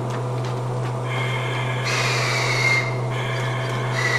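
Compressed air hissing out of a train's air-brake line with a whistling tone that falls in pitch, in two spells about a second apart, over a steady low hum.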